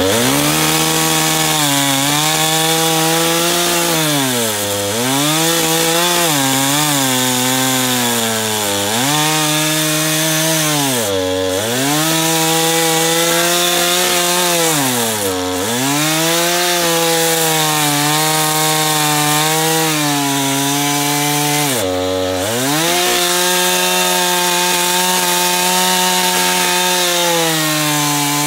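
Gas chainsaw running at high speed while cutting through a thick log. Its engine note dips sharply and recovers about six times.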